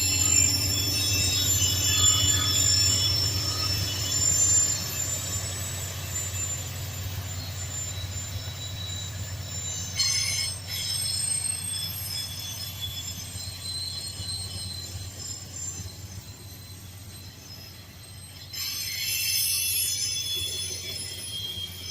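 Train rolling along the rails with high-pitched wheel squeal over a low rumble; the rumble slowly fades, and the squeal comes back louder about a second and a half from the end.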